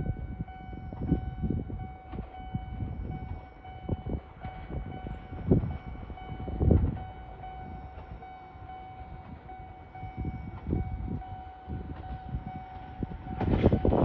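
Toyama Chihō Railway electric local train: a steady high whine with irregular low rumbles and knocks, louder near the end.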